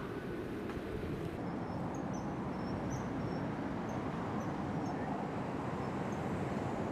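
Common kingfisher (female) giving a series of short, thin, high-pitched calls, several a second at irregular intervals, to call a male. Under them runs a steady low rumble.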